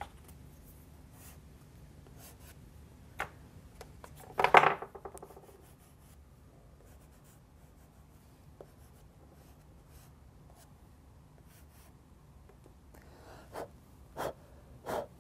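A Derwent XL charcoal block being drawn and rubbed across paper in short, scattered strokes. There is a louder brief sound about four and a half seconds in, and a few quick strokes near the end.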